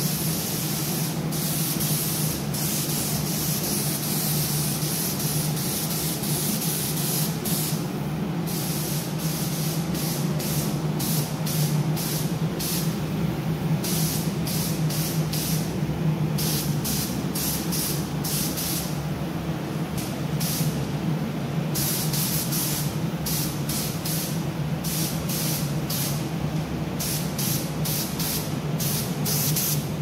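Air spray gun spraying paint: a continuous hiss for the first several seconds, then many short trigger bursts, over a steady low hum.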